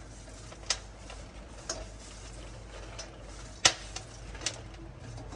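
Popcorn being scooped with a spoon from a steel kadhai into a steel plate: light stirring noise with a few sharp clicks of metal on metal, the loudest about three and a half seconds in.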